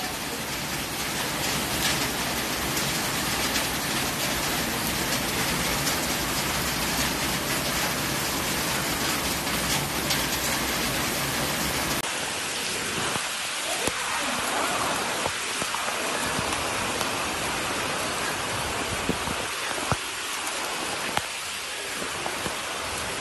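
Heavy rain falling steadily, a dense even hiss. About twelve seconds in, the recording cuts to another spot where the rain keeps falling, with faint voices in the background.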